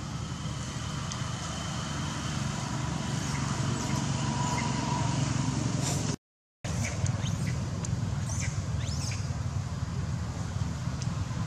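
Steady low rumble of road traffic. After a brief dropout about six seconds in, a few short high squeaks sound over it.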